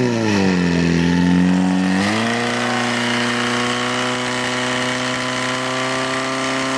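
Portable fire pump engine running hard under load, driving water into the attack hoses. Its pitch sags for a moment, then climbs about two seconds in and holds a steady high note.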